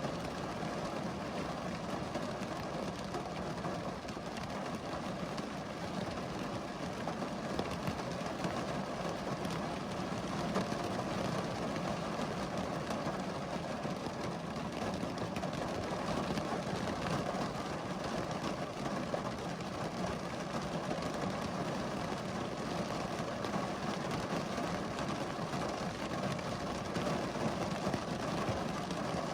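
Steady rain falling, an even hiss of many raindrops with no let-up.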